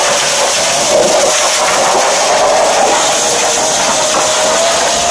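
High-pressure washer lances blasting water onto a steel plough: a loud, steady hiss of spray. A thin steady whine runs underneath and slowly rises in pitch.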